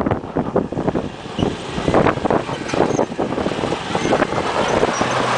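Toyota Hilux diesel pickup climbing a loose gravel slope: the engine runs under load while the tyres crunch and crackle over stones, with wind buffeting the microphone. A steady low engine note comes up near the end as the truck draws close.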